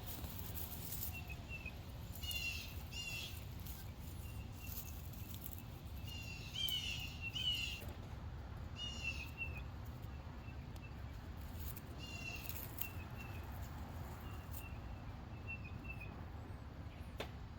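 Small songbirds calling: short, quick chirped phrases repeated every second or two, with faint single tick notes in between, over a steady low background rumble.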